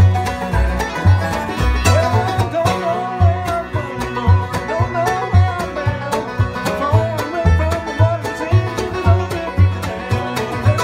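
Acoustic bluegrass band jamming an instrumental with banjo, dobro and mandolin over bass notes on a steady beat, about two a second.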